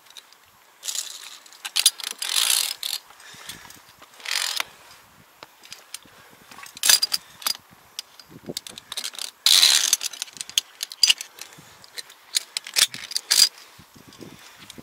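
Via ferrata lanyard carabiners clicking and scraping along the steel safety cable in irregular bursts as the climber moves up the rock.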